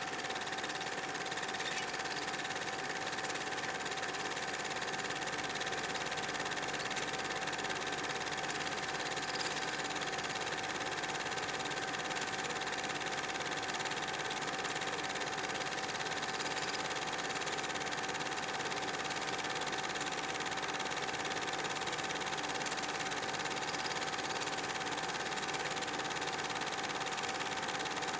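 Super 8 film projector running: a steady mechanical whirr with a constant whine, unchanging throughout.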